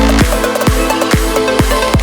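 Electronic dance music with a steady kick drum, about two beats a second, under a synth melody.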